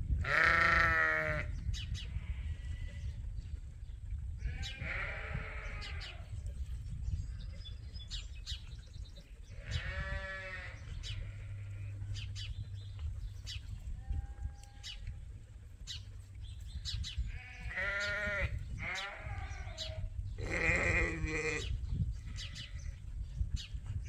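Sheep bleating, about six calls spaced a few seconds apart, two of them close together near the end; the first is the loudest. A steady low rumble runs underneath.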